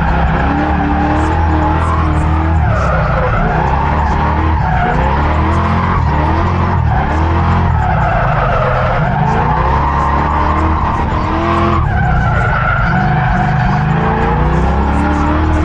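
Mustang's engine heard from onboard on a race track, revving up and dropping back through the gears several times, with tyre squeal.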